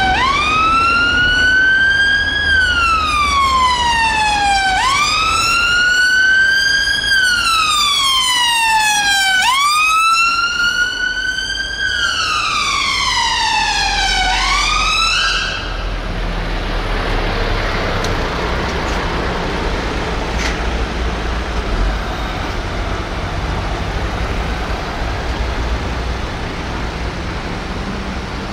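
Siren of a London Ambulance Service Mercedes-Benz Sprinter ambulance sounding a slow wail, the pitch rising and falling about every five seconds, three times over. It cuts off abruptly about halfway through, leaving traffic noise and low engine rumble.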